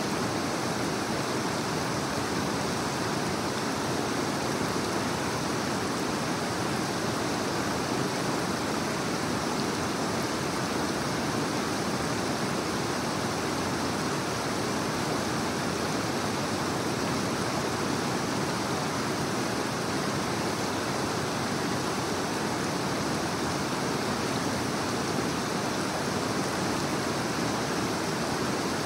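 Creek water rushing over rocks in a stretch of rapids, a steady, unbroken rush.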